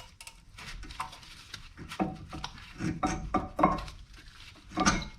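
Metal tools and brake parts clinking and knocking: a wrench working the brake hose bolt on the old brake caliper, a series of irregular sharp clicks with a few brief metallic rings.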